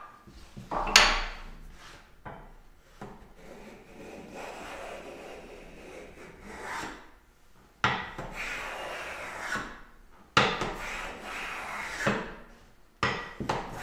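Wooden-bodied hand plane being pushed along a board in several long strokes, each a swishing rasp of the iron cutting a shaving, with a sharp knock about a second in.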